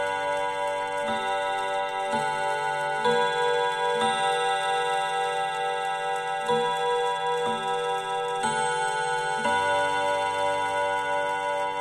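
Junghans mantel clock with a W64 movement chiming on its five nickel-silver rod gongs: hammers strike one after another about once a second, a different note or chord each time, each ringing on under the next.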